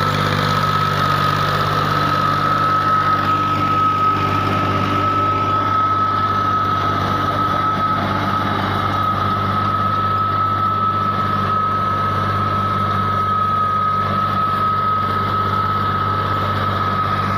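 Fiat 480 tractor's diesel engine running steadily at idle. A steady high-pitched whine sits over the engine note.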